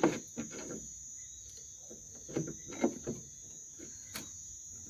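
Crickets chirping in a steady high-pitched drone, with a few short sharp clicks and knocks, the loudest at the very start and about three seconds in.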